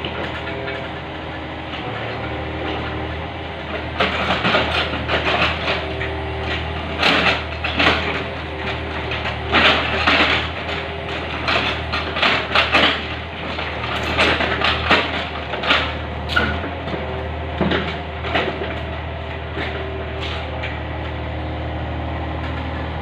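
Yanmar 35 mini excavator's diesel engine running steadily. Over it come irregular knocks, cracks and scrapes of tree roots and logs being handled and dropped, bunched in the middle of the stretch.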